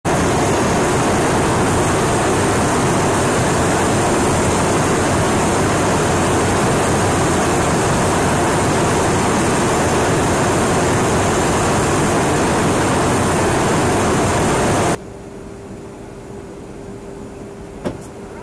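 Loud, steady rushing noise of jet aircraft in flight. About 15 seconds in it cuts off suddenly to a much quieter steady hum with a faint steady tone, and a single click sounds near the end.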